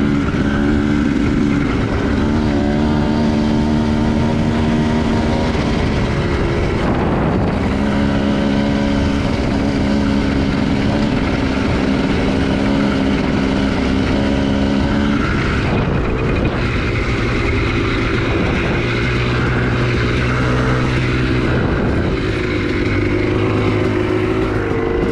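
Honda CR250R two-stroke single-cylinder dirt bike engine running hard under way, its note breaking briefly about two and seven seconds in. About two-thirds of the way through the revs drop to a lower, steadier note.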